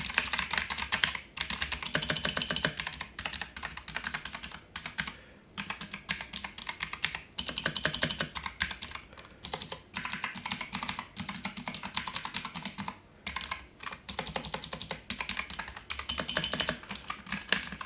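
Typing on a mechanical keyboard with blue (clicky) switches: fast, continuous clicking keystrokes with a few brief pauses.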